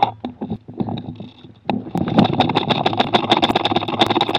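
Airsoft rifle firing a long, rapid full-auto burst of cover fire, a dense unbroken string of shots over a steady mechanical whine, starting about a second and a half in after a few scattered clicks. It is heard up close from the gun's own rail, with an echoing ring.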